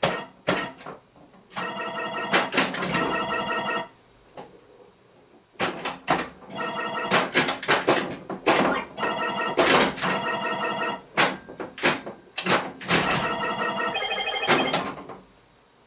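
A pinball machine being played: sharp clicks and knocks of the flippers, ball and targets, over bouts of the machine's electronic tones and sound effects, with brief lulls between.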